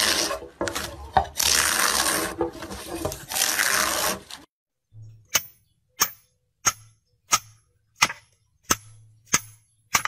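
A drawknife shaving pale wood off a log, in three or four long scraping strokes. Then a hammer taps the spine of a cleaver set on a watermelon: about eight sharp metallic clicks, roughly one and a half a second.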